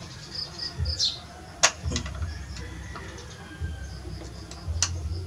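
A screwdriver turning a screw in the wooden stock of an Armscor .22 air rifle, with a few sharp clicks of tool and metal. Faint bird chirps come through behind it.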